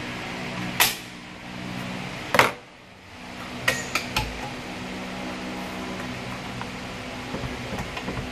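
Metal parts of a ZF 6HP-28X automatic gearbox clanking against the case as they are worked loose and lifted out during a strip-down: two sharp knocks about one and two and a half seconds in, the second the loudest, then a few lighter clinks around four seconds. A steady hum runs underneath.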